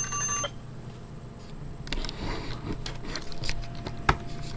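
A chime of several steady tones ends about half a second in. Then comes rustling handling noise with scattered clicks as the webcam is moved, with a sharp click about four seconds in.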